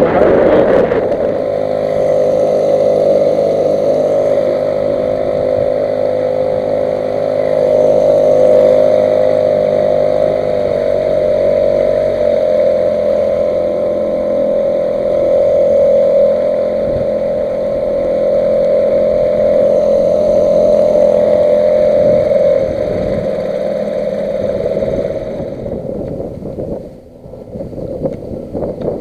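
Boat motor running steadily with a strong, even hum; its lower tone shifts about twelve seconds in, and it fades away near the end.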